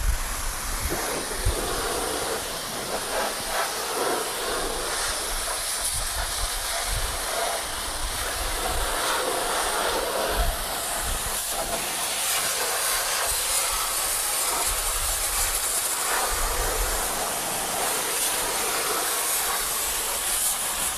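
High-pressure washer spraying water through its lance: a steady hiss of the jet striking the truck's wheel, wheel arch and body.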